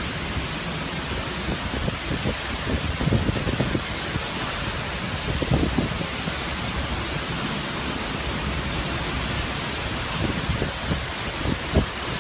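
Hurricane wind and heavy rain as a steady hiss, with gusts buffeting the microphone in short low rumbles a few times.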